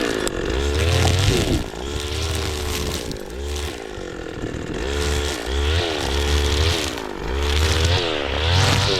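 Gas-powered weed whacker (string trimmer) running and being throttled up and down over and over, its engine pitch rising and falling about once a second as it cuts weeds down to the dirt.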